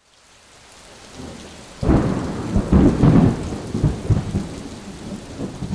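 Rain fading in, then a loud clap of thunder about two seconds in that rolls on in heavy rumbles and slowly dies away.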